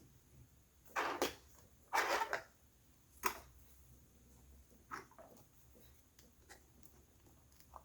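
Laptop parts being handled as the system board is pried up from one side: two short scraping rustles, then a sharp click and a few fainter clicks.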